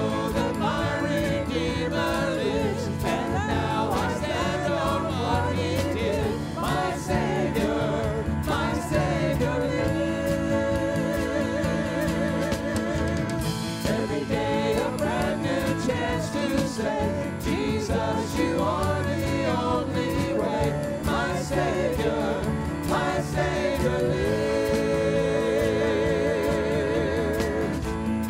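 Church worship music: voices singing a gospel-style song over a band, with a long wavering held note near the end.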